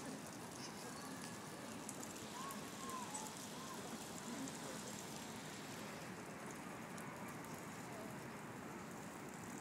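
Steady outdoor city ambience: an even hiss of distant traffic and street noise.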